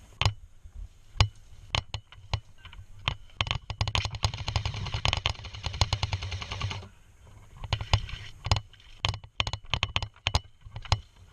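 Airsoft gun firing: scattered single shots, a burst of rapid fire lasting about three seconds near the middle, then more shots spaced apart.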